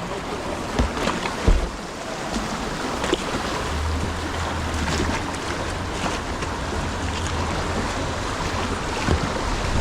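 River water rushing around a kayak, with scattered sharp splashes. From about four seconds in, wind rumbles on the microphone.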